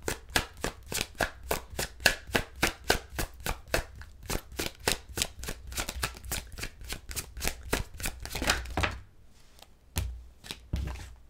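A tarot deck being shuffled overhand by hand: a quick run of card slaps, about four or five a second, that stops about nine seconds in, followed by a couple of lone taps.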